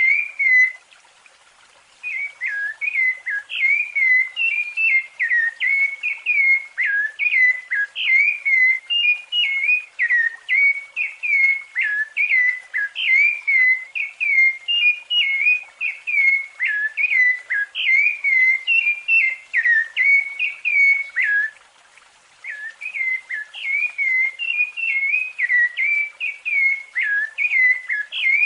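Rufous-bellied thrush (sabiá-laranjeira) singing its fluted song: a fast, continuous run of short whistled phrases, breaking off briefly about a second in and again about three-quarters of the way through.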